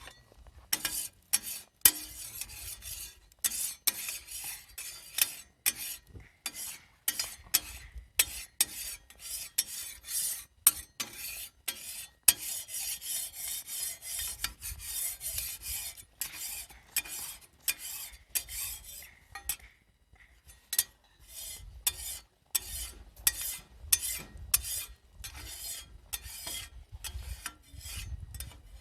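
Metal spatula scraping across a thick 9 mm iron griddle in short repeated strokes, about one or two a second, with a longer continuous scrape around the middle.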